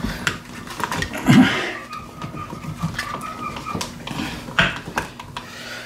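Handling noise of electrical wiring at a plastic wall box: scattered clicks, taps and rustles as insulated wires and plastic wire nuts are pushed and moved about. A brief low vocal sound about a second and a half in is the loudest thing.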